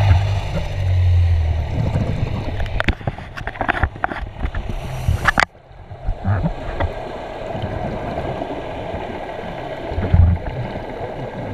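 Underwater sound of a scuba diver's regulator breathing: exhaled bubbles gurgling and rumbling out of the regulator at the start and again about ten seconds in, and a hissing inhale that cuts off sharply about five and a half seconds in, with a scatter of clicks before it.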